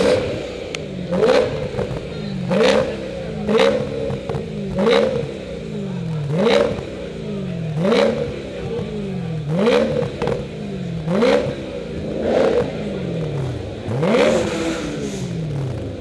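A BMW engine is blipped in neutral through its quad-tip exhaust, about eleven quick revs a little over a second apart. Each rev rises and falls in pitch, with a short sharp snap at the top of each.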